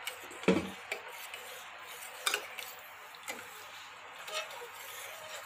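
Metal spoon stirring thin dal in a stainless steel pressure cooker pot: wet stirring with a handful of sharp clinks as the spoon knocks against the pot's side.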